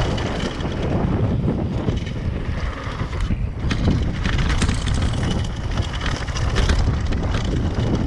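Wind buffeting an action camera's microphone as a downhill mountain bike rides fast down a dirt and gravel trail. Tyre noise runs underneath, with scattered knocks and rattles from the bike over bumps.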